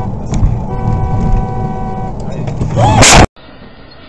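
A car horn held twice, each blast about a second and a half long, over road noise, then a loud, sudden crash of a collision about three seconds in. Quieter road noise from another car follows the crash.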